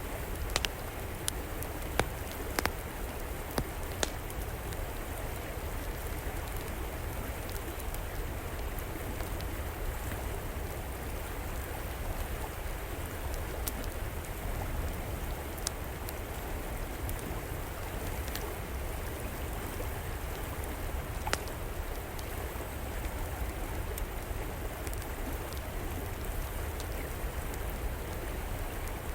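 River water flowing steadily, with a wood fire in an outdoor fireplace crackling now and then: a cluster of sharp pops in the first few seconds, then a few scattered pops.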